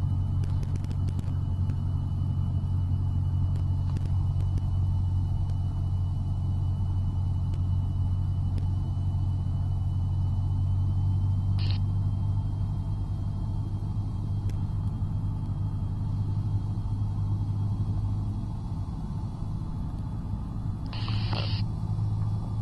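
Cessna 172's engine and propeller droning steadily, heard inside the cabin, easing slightly in level near the end. A faint steady high whine runs underneath, with two short bursts of hiss near the middle and near the end.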